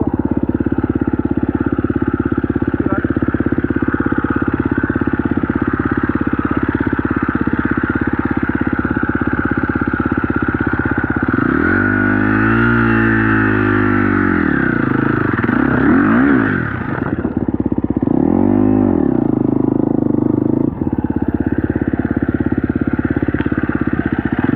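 Four-stroke KTM 250 SX-F dirt bike engine running steadily while riding. It revs up and drops back once about halfway through, and again briefly a few seconds later.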